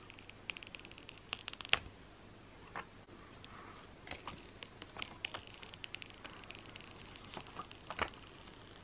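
Thin protective plastic film being peeled off a new iPhone SE 2020, with faint crackling and scattered small clicks of handling; one sharper click just before two seconds in.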